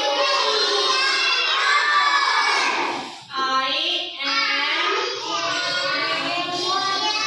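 Several children's voices singing and shouting together, with a brief break about three seconds in.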